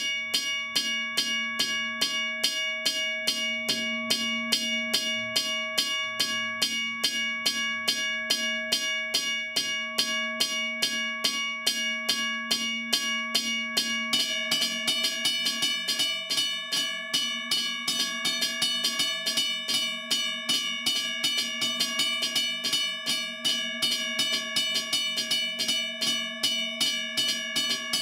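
Electromechanical railroad crossing bells ringing: a coil-driven striker hammering a metal gong several times a second, each stroke leaving a steady ringing tone. About halfway through a second bell joins in, so the strokes come thicker and the ring grows brighter.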